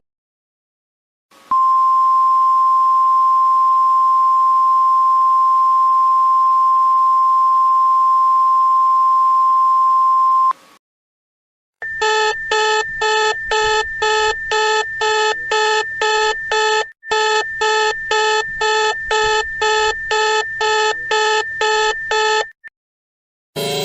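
Emergency alert tones: a steady single-pitch alert tone held for about nine seconds, then cut off. After a short gap comes a fast pulsing electronic alarm, about two and a half beeps a second over a steady higher tone, lasting about ten seconds.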